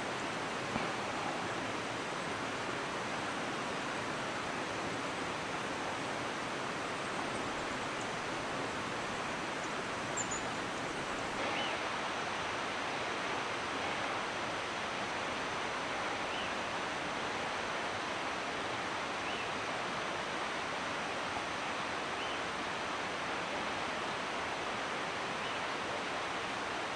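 Steady rushing water of a mountain stream or cascade, an even noise with no change in level. A few faint high chirps come through over it in the middle.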